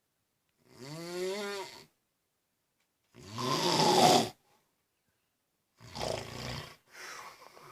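A man snoring: four snores with silent pauses between them. The first carries a groaning pitch that bends, the second is the loudest and harshest, and the last two are shorter and come close together near the end.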